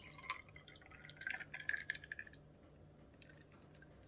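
Juice poured from a jug over ice into a glass tumbler: a faint splashing trickle that stops about two seconds in.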